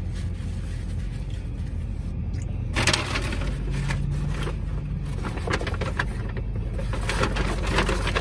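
Paper takeout bag rustling and crinkling as a clamshell food container is lifted out of it, starting about three seconds in, over a steady low hum in a car's cabin.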